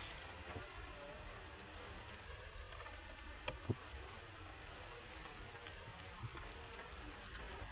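Faint outdoor ambience with a steady low rumble and hiss, and two sharp clicks in quick succession about three and a half seconds in.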